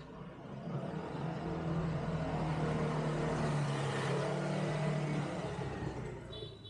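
A motor vehicle passing close by: its engine hum and road noise swell up over a couple of seconds, hold through the middle, then fade away near the end.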